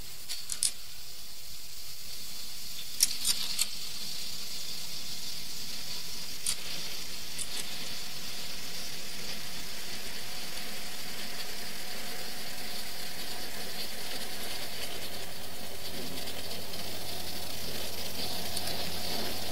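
Steady background hiss that slowly grows louder, with a few faint clicks in the first half. A low hum joins in about two-thirds of the way through.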